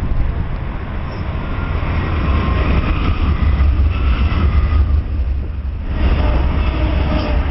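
BNSF diesel freight locomotives passing directly beneath with a heavy low rumble of engines and wheels, then double-stack container cars rolling by on the rails.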